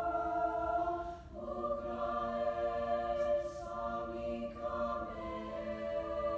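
Mixed choir singing a cappella in long, sustained chords that shift slowly, with a brief dip in level about a second in as the chord changes.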